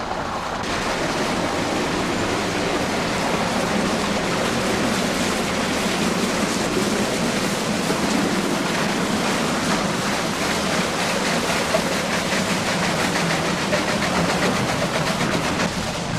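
Water-powered sawmill running: water rushing through the opened sluice, with a steady mechanical clatter from the mill's machinery.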